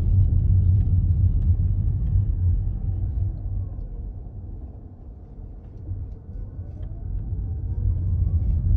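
Low road-and-drivetrain rumble inside a Toyota Corolla Touring's cabin while driving, easing off around the middle and building up again, with a few faint ticks from the interior rattle being recorded.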